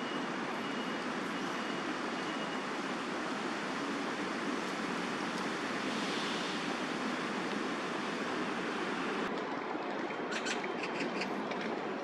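Steady roar of distant city traffic with no bird calls standing out. Near the end a short run of sharp clicks or rattling notes sounds over it.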